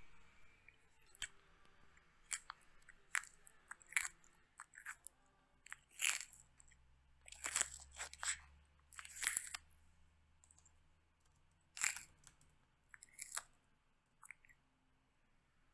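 A tortoise biting and chewing a crisp vegetable strip: an irregular string of short crunches and snaps, loudest in the middle and again late on.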